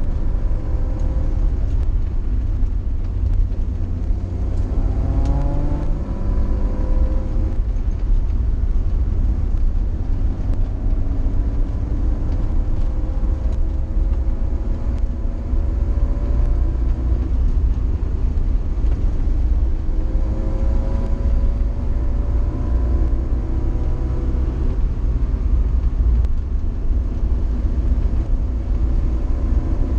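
Fiat 124 Coupe engine heard from inside the cabin on a hill climb. Its note rises several times as it pulls through the gears, over a heavy, steady low rumble of engine and road.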